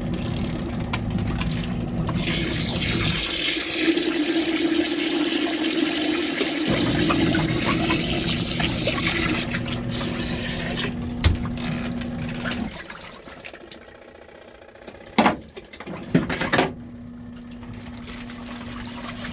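Water pouring into the wash tub of a portable twin-tub washing machine, a loud rushing that fades out about two-thirds of the way through. Underneath, the washer's wash motor hums steadily, stopping early on and starting again near the end, with a few knocks just before it restarts.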